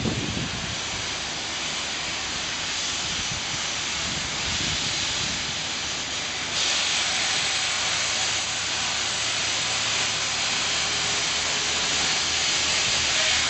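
Grit blasting: a steady hiss of abrasive blasted under compressed air, getting louder about six and a half seconds in.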